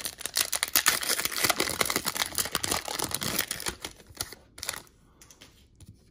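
1992-93 SkyBox basketball trading cards and their pack being handled: dense, rapid clicking and crinkling for about four seconds, then only a few scattered clicks.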